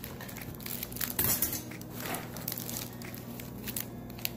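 Plastic packaging crinkling as it is handled, in short scattered rustles over a steady low hum.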